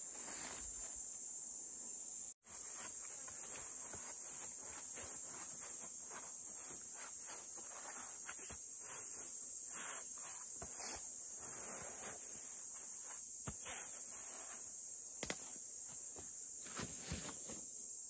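Fallen leaves being swept off the ground in repeated soft scraping strokes, over a steady high-pitched insect drone.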